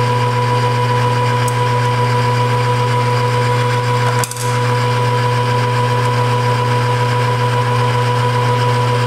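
Metal lathe running with a steady mechanical hum from its motor and gearing, briefly broken about four seconds in.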